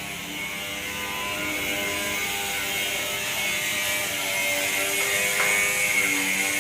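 Corn sheller machine running steadily with a dense mechanical noise.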